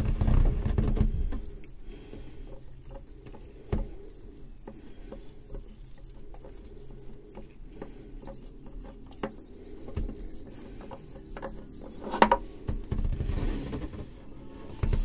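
Oil filter being unscrewed by hand from a Yamaha 1.8-litre four-stroke engine: soft rubbing and scraping of the hand on the filter canister, with scattered light clicks and a louder clatter near the end as the filter comes off. A low rumble fills the first second or so.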